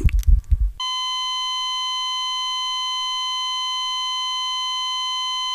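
Low pulses fade out under a second in, then a heart monitor's flatline sounds: one unbroken high electronic tone held at a steady level for nearly five seconds and cut off abruptly, the signal of death.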